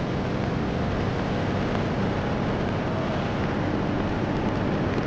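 Steady rush of wind over the microphone, mixed with road and traffic noise, while riding on an open two-wheeler through town.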